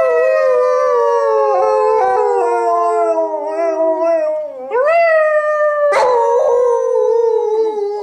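Husky howling: long drawn-out howls that each slide down in pitch, a shorter one about five seconds in and another starting near six seconds.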